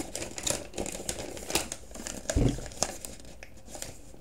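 A folded paper instruction sheet being unfolded and handled, crinkling and rustling in irregular, short crackles. A single dull thump, the loudest moment, about two and a half seconds in.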